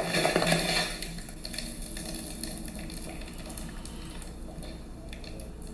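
Over-pressured homemade currant kombucha gushing out of its bottle in a hissing spray, dying down after about a second to steady fizzing and dripping. The sign of a brew over-carbonated by too much sugar.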